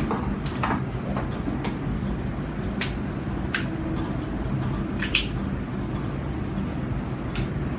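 Room tone: a steady low hum, with about seven light, sharp clicks and taps scattered through it.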